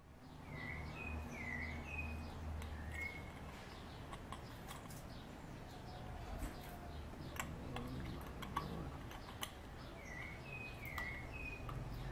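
A small bird singing a short phrase of four or five chirps, twice: once about a second in and again near the end. In between come scattered light clicks and taps from hands handling the motorcycle's handlebar cables and front fairing.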